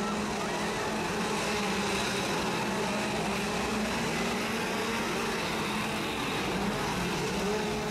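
Two-stroke gas chainsaw engines running at a steady pitch.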